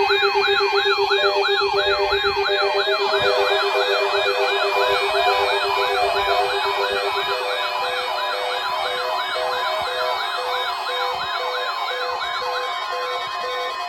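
Weather-radio test alarm made of several overlapping electronic siren wails, each rising and falling quickly several times a second, over steady and pulsing tones. The sound carries on without a break and slowly grows a little quieter toward the end.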